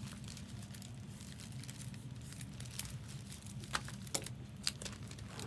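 Plastic trading-card packaging crinkling and tearing as it is handled, with a few sharp clicks a little past the middle, over a low steady hum.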